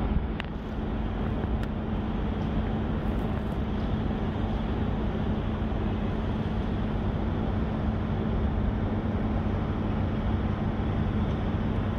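Steady city background rumble of traffic and machinery, with a constant low hum and a faint click about half a second in.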